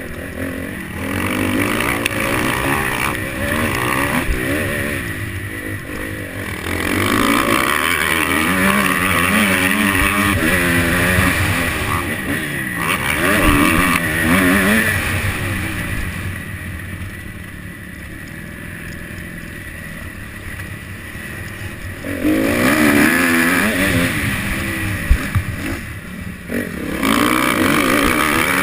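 Motocross bike engine heard from on board, revving up and down repeatedly as the rider works the throttle around the track. It drops back to a quieter run for several seconds past the middle, then opens up again.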